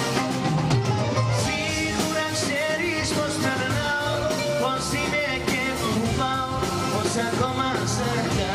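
A live band plays a Greek pop song over a PA, with drum kit, guitar and keyboard and a steady bass line. A male singer's voice carries an ornamented, wavering melody on microphone.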